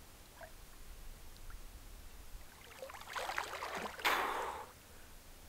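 Water sloshing around a swimmer ducking his head under in a still pond, with a louder splash about four seconds in as he comes back up.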